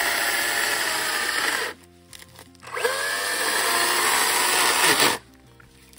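Makita DUC405 cordless electric chainsaw cutting through a log, its motor whine mixed with the chain tearing wood. It drops out for about a second, spins back up with a rising whine, and stops suddenly a little after five seconds in.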